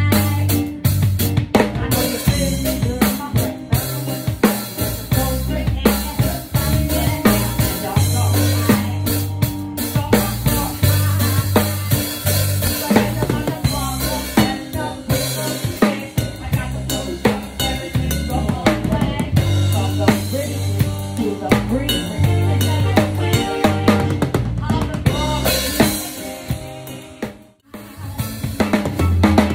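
Live band music with a drum kit played close up: snare, kick and cymbal hits over bass and keys. Near the end the music cuts out for a moment and another song starts.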